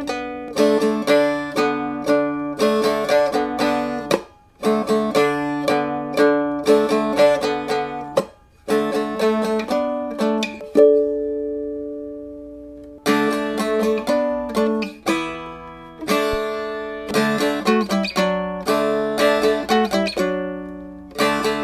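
Music: a plucked string instrument picks out a quick melody of ringing, decaying notes. There are two short breaks, and one long note is left to ring out near the middle.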